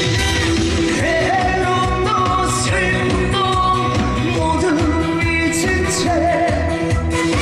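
A trot song sung live with a steady beat, the singer's voice over the band backing.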